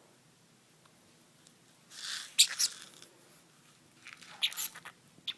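A small pet eating a treat: two short bursts of crisp crunching and snuffling, about two seconds in and again about four seconds in.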